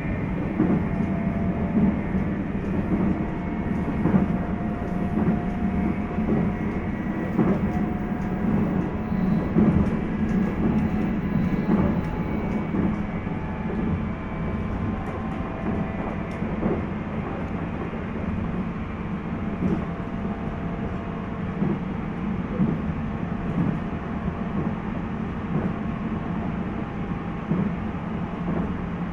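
JR East 719 series electric multiple unit running at speed on the Tohoku Main Line: a steady rumble of wheels on rail with faint steady motor and gear tones, and scattered knocks from the rail joints.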